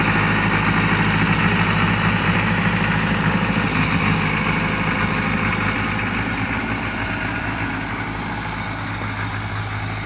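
1960s Case loader-backhoe's engine running steadily as the tractor drives over spread gravel, fading gradually in the second half as it moves away.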